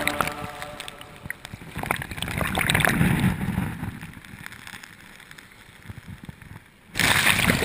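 Sea waves washing and sloshing. The sound swells about three seconds in, dies down, then surges back suddenly near the end.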